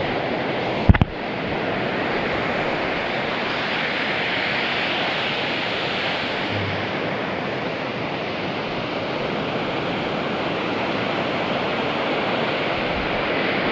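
Pacific Ocean surf breaking on the beach, a steady rushing wash of waves, with one brief thump about a second in.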